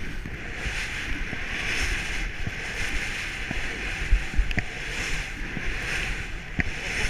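Skis turning through snow on a downhill run, a whoosh with each turn about once a second, over low wind rumble on the microphone.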